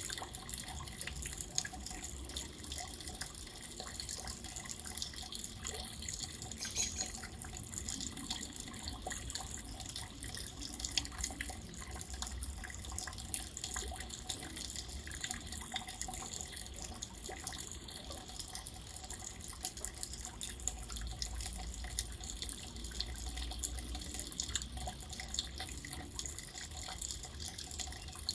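Steady rain falling, with a dense, even scatter of sharp drop impacts and drips.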